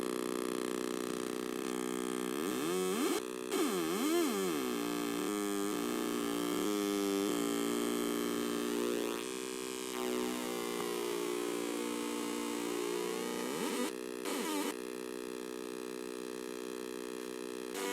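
Two homemade Atari Punk Console square-wave synth circuits, built around 556 timer chips, droning buzzy electronic tones through small computer speakers. Their pitch sweeps up and down and steps between notes as the potentiometers are turned, with two brief dropouts, one about three seconds in and one about fourteen seconds in.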